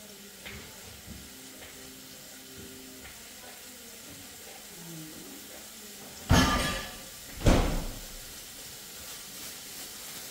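Pieces of fish dropped into hot oil in a cooking pot: two loud sizzling bursts about a second apart, each fading within half a second, over faint background music.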